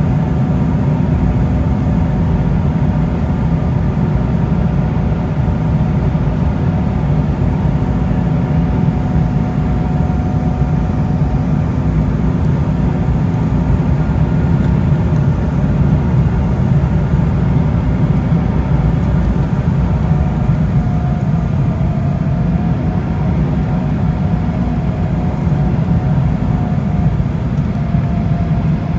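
Steady cabin noise inside an Embraer E190 airliner: the GE CF34 turbofan engines and rushing air make a constant low noise, with a faint steady whine that wavers slightly in the last several seconds.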